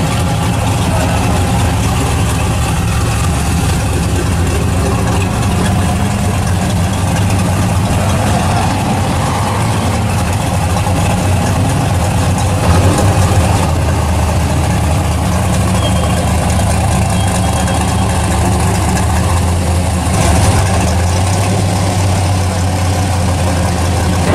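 Engine of a pro-street square-body Chevrolet pickup idling loud and steady, swelling briefly about halfway through and again near the end.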